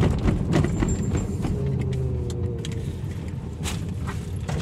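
Daihatsu Terios running at low speed, a steady low engine and road rumble heard from inside the cabin. A few sharp clicks and knocks come through it, several in the first second and two more near the end.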